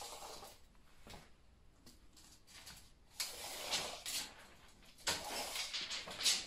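A metal tape measure being pulled out along a door frame, its blade rattling and scraping in two pulls of about a second each, about three seconds in and again about five seconds in, with a sharper click near the end.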